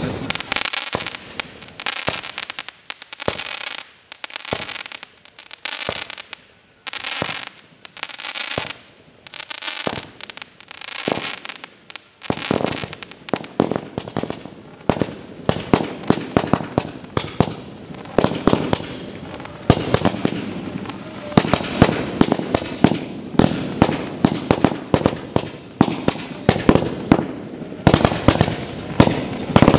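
A 'Bonzai Garden' ground fountain firework spraying sparks. For about the first twelve seconds it gives repeated hissing spurts about a second long, then it crackles densely with rapid sharp pops to the end.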